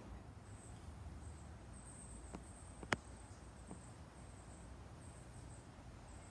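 Quiet outdoor background: a low steady rumble, a faint thin high-pitched tone that comes and goes, and one sharp click about three seconds in, with two smaller clicks around it.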